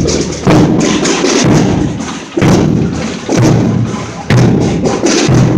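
Procession drum beating a slow, steady pulse of single strokes, about one a second.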